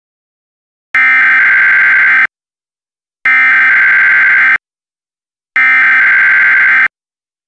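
Emergency Alert System SAME header: three identical bursts of buzzing data tones, each a little over a second long, the coded header sent before a new warning.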